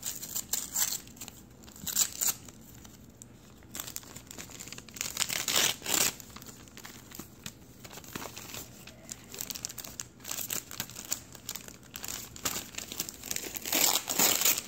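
Paper gift wrapping crinkling and tearing as a present is unwrapped by hand, in irregular bursts of rustling, loudest about halfway and again near the end.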